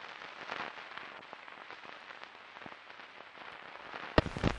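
Crackle and hiss of an old recording: a steady haze of surface noise with scattered clicks and pops. About four seconds in it jumps louder, with a dense run of heavier pops.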